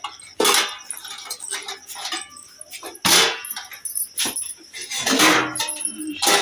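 Stainless steel plates and bowls clattering as they are handled in a plastic basket, with several sharp clanks that ring briefly.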